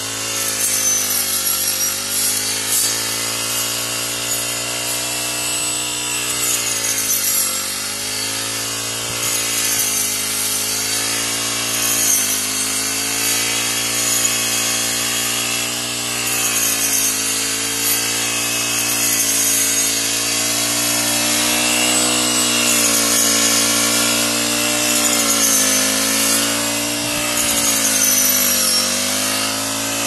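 Honda backpack brush cutter fitted with a rice-harvesting blade, its engine running at high speed. The engine note dips in pitch every few seconds and picks up again as the blade cuts through the rice stalks.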